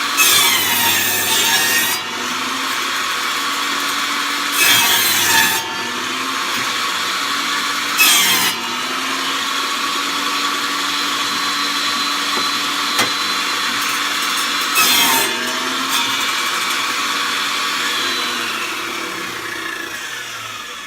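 Table saw running steadily while its blade cuts the overhanging corners off a board on a circle-cutting jig, in four short, louder cuts of one to two seconds each. Near the end the saw is switched off and winds down, its pitch falling.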